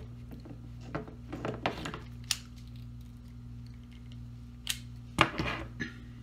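Scattered light clicks and taps from hands handling a cordless drill and a baitcaster reel while fishing line is put onto the drill bit, in two clusters about a second in and about five seconds in. A steady low hum runs underneath.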